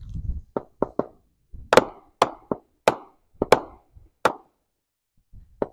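Marines 9-shot firework cake firing its shells: low thuds at the start, then a quick, irregular run of sharp bangs and pops as the shells launch and burst, with a pause of over a second before one more bang near the end.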